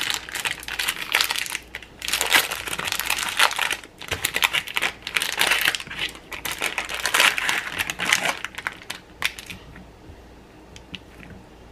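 Plastic wrapping on a block of cheese crinkling in bursts as it is handled and pulled off. The crinkling dies down near the end, leaving a few light taps as the knife goes into the cheese on the cutting board.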